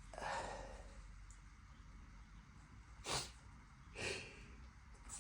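A person breathing between sneezes in a sneezing fit: a soft breath out right after a sneeze, then two short, sharp catches of breath about a second apart near the end as the next sneeze builds.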